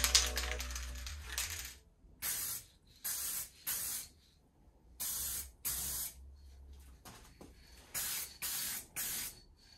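Aerosol spray can of primer hissing in about eight short bursts, each under half a second, in groups of two or three as the frame is primed.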